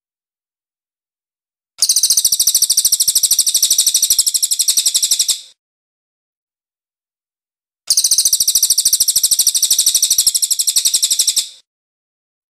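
Cililin (crested jay) singing two bursts of about three and a half seconds each. Each burst is a fast, even string of sharp, high notes, separated by silent gaps.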